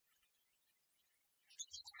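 Near silence: quiet room tone, with a faint, short sound coming in near the end.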